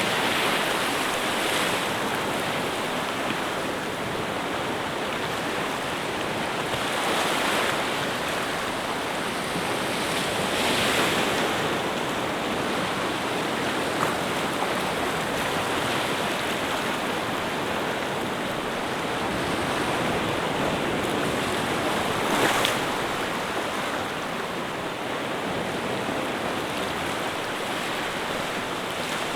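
Ocean surf: a steady rush of waves washing in, swelling a few times.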